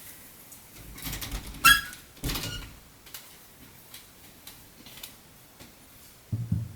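Objects being handled: a few short knocks, a sharp click with a brief squeak about one and a half seconds in, and a low thump near the end.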